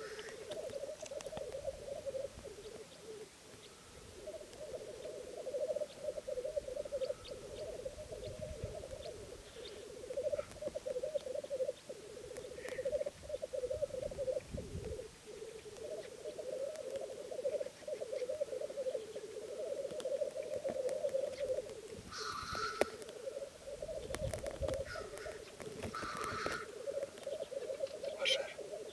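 Male black grouse displaying at a lek, bubbling (rookooing) in a continuous low, dove-like warble. In the last quarter a few short, harsh hissing calls cut in over it.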